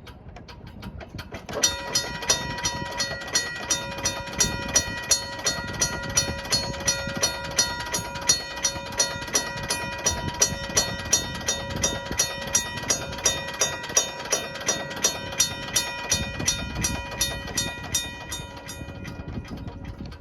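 Union Switch & Signal mechanical railroad crossing bell ringing: its hammer strikes the gong rapidly and evenly, about two and a half strokes a second. It starts about a second and a half in and winds down near the end.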